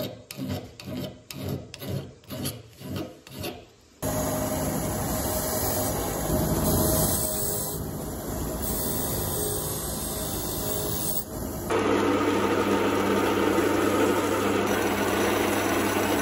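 Hand file strokes on a metal ratchet wheel held in a vise, about two a second. About four seconds in they give way to a bench grinder grinding the wheel, and near twelve seconds to a drill press spinning a small mounted point against it, a steady noise over a low motor hum.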